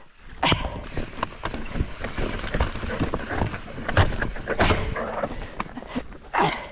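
Mountain bike rolling over a rocky trail, its tyres and frame giving a string of knocks and rattles over the rocks.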